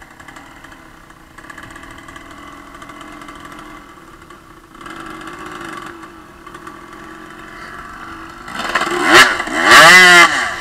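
Enduro dirt bike engine running at low revs as the bike creeps along a steep dirt bank. Near the end it is revved hard twice, rising and falling sharply, as the bike charges up the slope.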